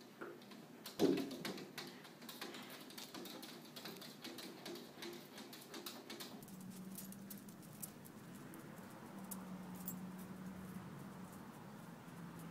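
Faint quick tapping and clicking of paws and claws against a glass door, with one louder knock about a second in.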